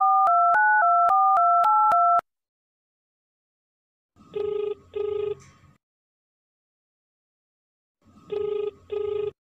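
Mobile phone keypad tones as a number is dialled: eight quick two-tone beeps run together for about two seconds. Then the ringback tone through the handset while the call rings out unanswered: a low, buzzy double ring, heard twice about four seconds apart.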